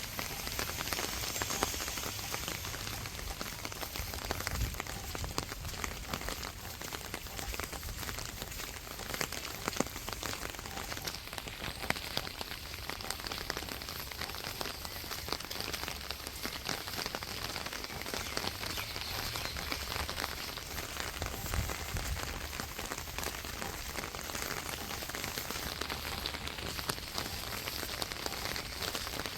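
Steady rain falling on a street, with a constant hiss and many small drop impacts. A few brief low thumps stand out, about four seconds in and again past the twenty-second mark.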